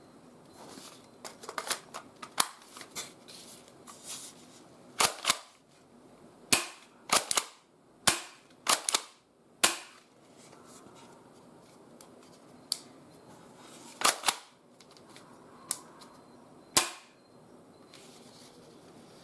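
Double Eagle M401 spring airsoft shotgun being cocked and fired over and over: a series of sharp clacks and snaps, over a dozen loud ones, with lighter clicks before them.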